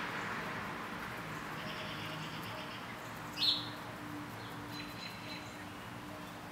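A single short bird chirp, falling in pitch, about halfway through, over quiet background hiss and a faint steady hum.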